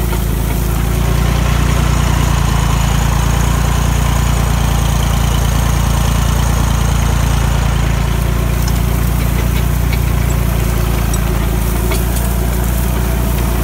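Tractor engine running steadily under load while pulling a mounted plough, heard up close from the driver's seat beside the exhaust stack. It swells slightly about a second in, then holds a constant note.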